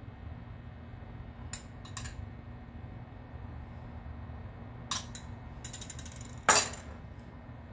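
Kitchen utensils tapping and clinking against glass bowls and a glass baking dish: a few light taps, then one louder clink about six and a half seconds in, over a faint low hum.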